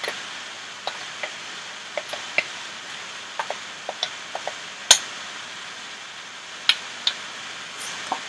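Spoon knocking and scraping in a frying pan as ground beef (kefta) filling is stirred: scattered light clicks, one sharper clack about five seconds in, over a light steady sizzle.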